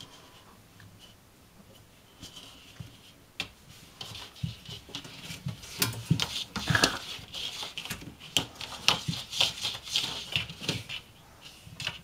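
Soft rustling and many irregular clicks as a cat shifts about on a fridge shelf close to the microphone. Fairly quiet for the first couple of seconds, then growing busier.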